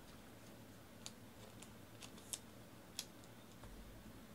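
Near silence: room tone broken by a few faint, short clicks.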